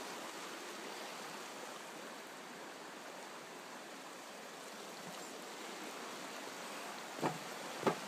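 Shallow mountain creek rushing steadily over rocks below a footbridge. A couple of short knocks come near the end.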